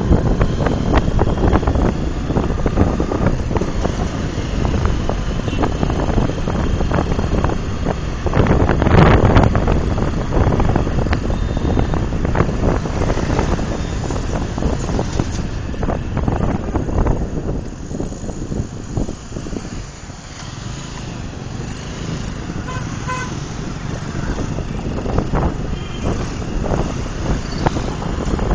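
Wind rushing over the microphone of a moving motorcycle, mixed with its engine and the surrounding road traffic, with a louder surge about nine seconds in. A short vehicle horn toot sounds about three quarters of the way through.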